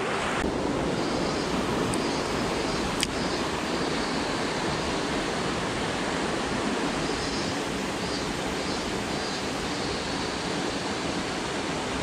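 Mountain stream rushing over rocks and through shallow riffles: a steady, even rush of water, with a small click about three seconds in.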